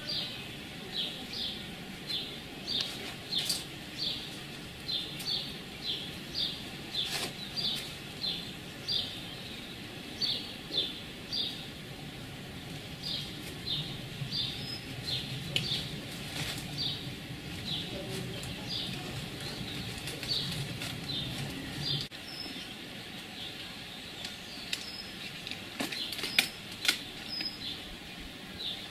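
A small bird calling with a short, high chirp repeated about twice a second, on and on without a break. A faint low hum sits underneath for a while, and a few sharp clicks come near the end.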